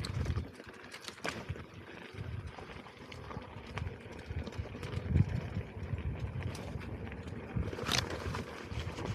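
Off-road electric unicycle rolling over rough ground: irregular knocks and clatter of the tyre and machine over the trail, with sharp clicks now and then.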